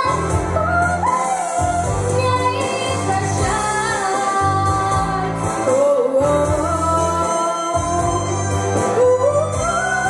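A girl singing into a handheld microphone over an instrumental backing track, in long held notes that slide between pitches, with a steady bass pulse beneath.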